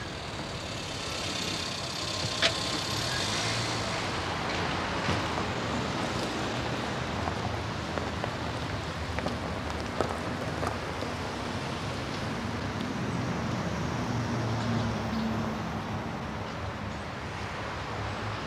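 BMW 3 Series estate patrol car's engine running as the car backs up and drives across gravel, tyres rolling over the loose surface. The engine hum grows somewhat stronger in the second half.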